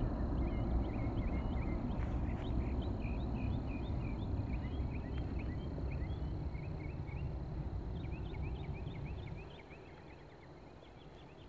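Rumble of a departing Boeing 777-200ER's Rolls-Royce Trent 800 engines, fading as the jet climbs away and dropping off sharply about nine and a half seconds in. Small birds chirp throughout.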